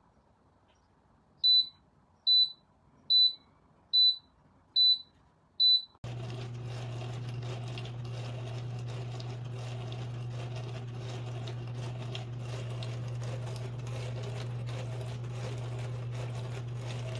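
Six short, high electronic beeps, evenly spaced, from the IAGREEA countertop dishwasher's control panel. They are followed abruptly by a steady low hum with a hiss.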